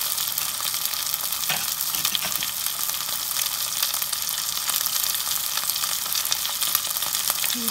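Hot oil sizzling steadily in a pot of frying sliced onions with dollops of ginger-garlic and onion paste, with fine crackling throughout.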